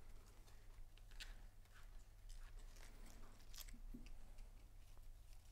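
Near silence with a low room hum, faint rustling and a few soft clicks as tulip stems are handled and pushed into a flower arrangement.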